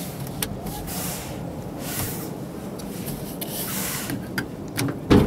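Hand rubbing and tapping on the plastic interior trim of a DFSK K01H cab: light scrapes and small clicks over the steady murmur of an exhibition hall, then one louder clunk near the end.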